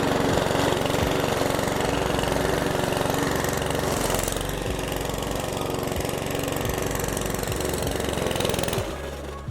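Mountfield lawn mower's small four-stroke petrol engine running steadily, then cutting out about nine seconds in. It is stalling again: the owner finds the valve adjustment was not tightened up enough.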